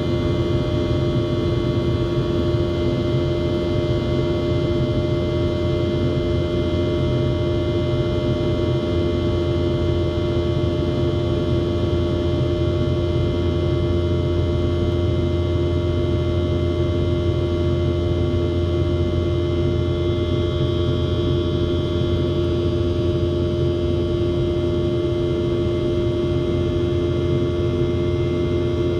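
Steady drone of an airliner's rear-mounted jet engine heard inside the cabin during the climb after takeoff: a low rumble with a steady humming tone on top, unchanging throughout.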